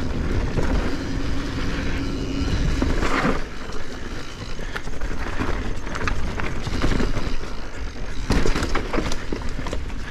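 Mountain bike being ridden over a rough dirt trail: steady tyre rumble with frequent sharp knocks and rattles from the bike over roots and rocks.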